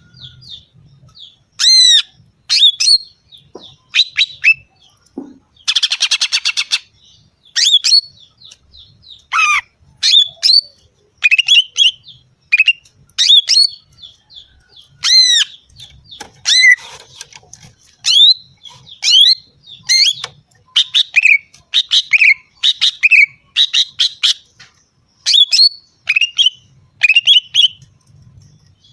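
Female cucak ijo (green leafbird) calling: a string of short, sharp, high-pitched notes that sweep steeply in pitch, about one or two a second, with a fast chattering rattle about six seconds in. A lure call that keepers play to excite male cucak ijo.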